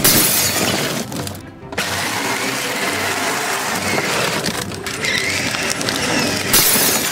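Power Wheels Grave Digger ride-on toy truck's electric motor and gearbox whirring as the truck pushes into and crushes a cardboard box, with cardboard crunching; loudest right at the start and again near the end.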